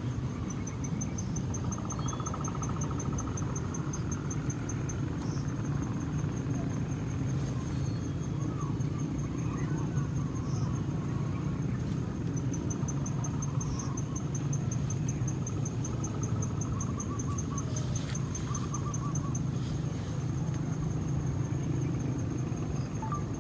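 Spotted doves cooing low and repeatedly, with an insect's high, fast-pulsing trill in two long stretches, the first near the start and the second in the middle.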